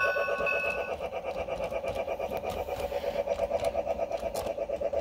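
Lionel Polar Express G-scale train running past on its track: a steady, rapid rhythmic clatter-hum from the motor and wheels. A few steady higher tones carry over at the start and stop about a second in.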